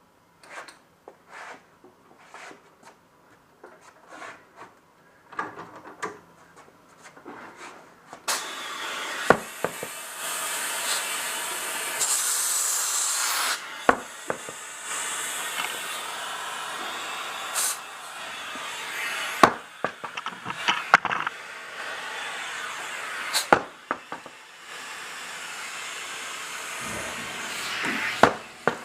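Compressed air hissing steadily into a car tire as it is inflated to seat the beads on the rim, after some small clicks and knocks of handling. Several sharp snaps cut through the hiss.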